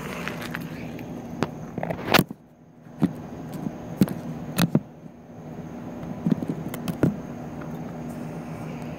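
Phone being handled and set down: a series of sharp knocks and clicks against the microphone, the loudest about two seconds in, over a steady low hum.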